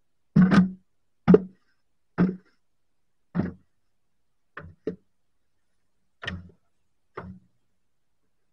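Short crunches and scrapes in deep snow from boots and a black plastic snow shovel being worked, about one a second, eight in all, stopping a second before the end.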